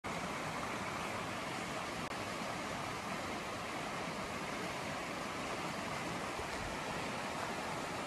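Steady rush of a shallow river running over rapids, with a momentary dropout about two seconds in.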